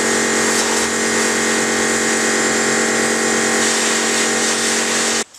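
Pressure washer running: a steady pump hum under the hiss of its water jet spraying the metal lathe rods, cutting off abruptly near the end.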